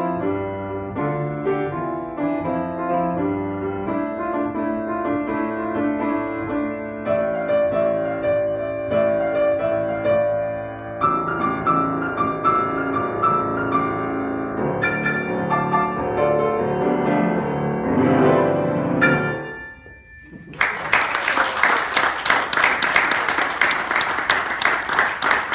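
Solo grand piano playing a piece. The piece ends with a final chord about three-quarters of the way through, and after a brief pause an audience applauds.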